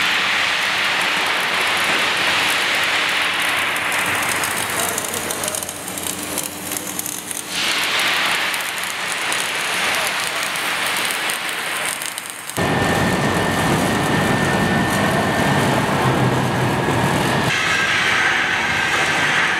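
Steady industrial noise of a steel pipe fabrication shop, a dense hiss and rumble of welding and machinery on large steel pipes. It changes abruptly twice, with a faint steady whine through the later part.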